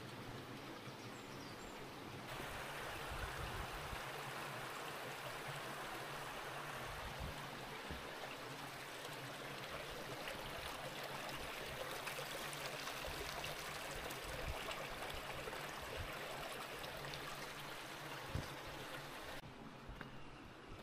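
A stream running steadily, an even rushing of water, a little louder from about two seconds in and dropping back near the end.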